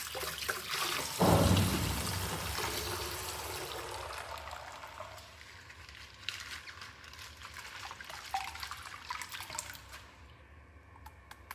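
Liquid sound: a sudden start about a second in, then a hissing, crackling trickle that slowly fades away.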